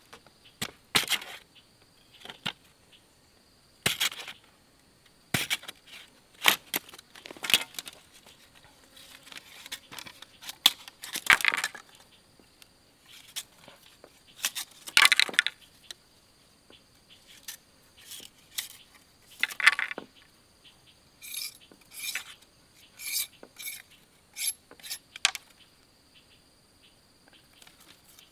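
A long knife shaving and splitting green bamboo into thin strips: irregular rasping strokes of the blade along the wood, a few longer scrapes, and a run of short quick cuts in the last few seconds.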